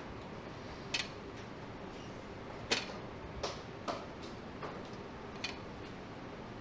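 Metal plating tweezers clicking lightly against a ceramic plate as pieces of seafood are set down: about six short, sharp clicks at uneven intervals, the loudest nearly three seconds in, over a steady background hiss.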